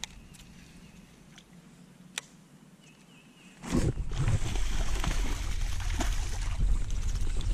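A few faint ticks, then about three and a half seconds in a sudden burst of splashing as a hooked bass thrashes at the water's surface. The splashing runs on with many sharp strokes.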